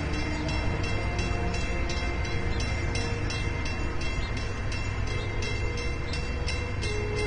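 Steady low rumble of a large car ferry's diesel engines as it runs out through the channel.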